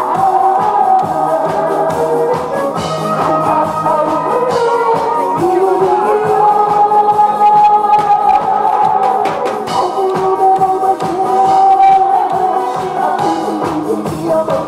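A woman singing a song into a microphone over instrumental accompaniment with a steady beat, holding long notes.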